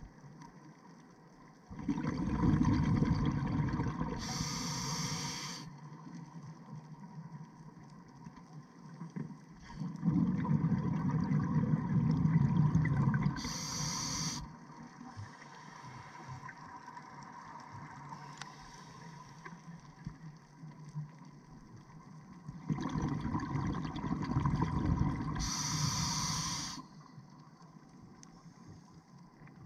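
A diver breathing on a scuba regulator underwater: three breaths about ten seconds apart, each a few seconds of rumbling, gurgling exhaust bubbles with a brief hiss near its end, and low water noise between them.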